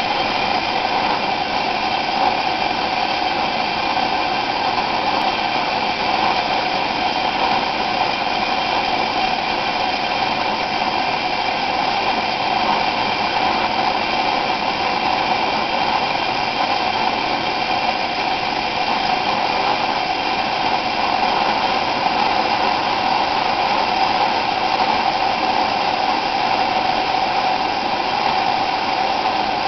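Coleman 417B pressurized white-gas stove burner running with a steady rushing hiss. The air lever is up to purge excess fuel from the generator, so the flame is burning leaner.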